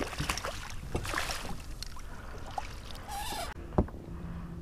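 A small redfish (red drum) splashing in a landing net as it is scooped from the water beside a kayak, with water sloshing and pouring off the net. A single sharp knock comes near the end.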